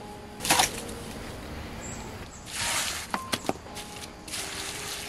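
Wet cement and rice-husk-ash mortar being scooped with a trowel and packed down by hand: soft wet slaps and scrapes, with a few sharp clicks about three seconds in.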